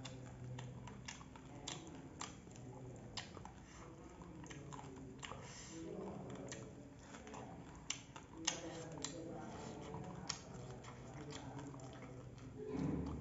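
A person eating rice and chicken curry by hand from a steel plate: wet chewing and mouth smacks with many short, sharp clicks scattered throughout, and a louder low swell near the end.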